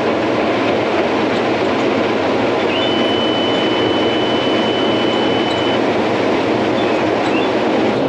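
Combine harvester cutting standing corn, its 8-row Drago chopping corn head taking in and chopping the stalks: a loud, steady, dense machine noise. A thin steady high tone sounds for about three seconds in the middle.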